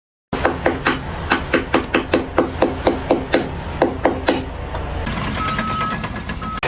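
Rapid, evenly spaced knocks, about five a second, starting after a moment of silence and stopping after about four seconds, followed by a steady background noise.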